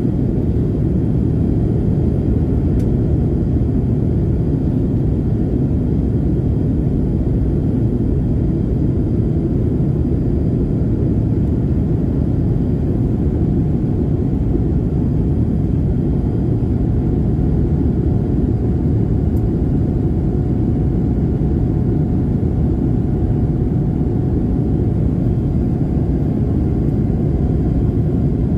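Steady cabin noise of a Boeing 787-8 airliner with two GEnx-1B engines: an even, loud rumble of engines and airflow heard through the cabin, with a faint steady tone above it.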